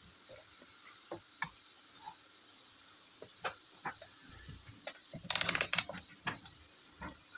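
Scattered light clicks and taps, then a quick run of rapid clicks a little over five seconds in: an analog multimeter's rotary range selector being turned through its detent positions.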